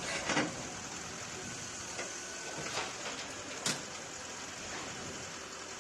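Demolition bulldozer's engine running under a steady noise, with three sudden knocks spread over the first four seconds, the first the loudest.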